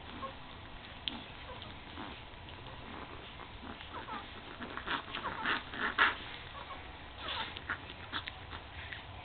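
Newborn puppies squeaking and whimpering as they nurse, in short high cries. The squeaks come thicker and louder about five to six seconds in, with a few more near the end.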